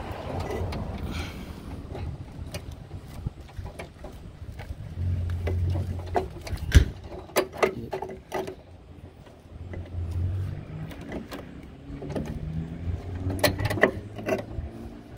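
Scattered metallic clicks and knocks as an ABS pump unit is worked back into place in a car's engine bay and its brake-line fittings are lined up, with one sharp knock about seven seconds in. A low hum comes and goes twice.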